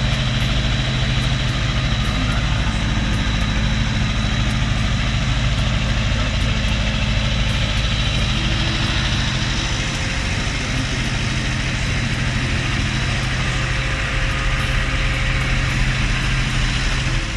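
Milk tanker truck's diesel engine running steadily while the tanker collects milk from the farm, a constant low hum with a hiss over it.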